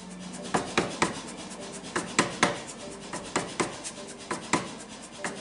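Irregular sharp taps and clicks, about two or three a second, over a faint rubbing noise.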